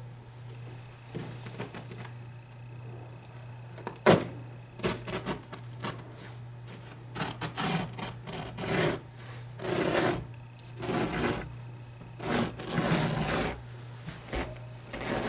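Loop pile cutter drawn through carpet backing along a seam in a series of short, rough cutting strokes, with a sharp click about four seconds in. A steady low hum runs underneath.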